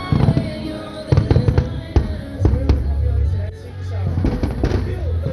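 Fireworks going off in a rapid, irregular series of sharp bangs over loud music with a deep bass line.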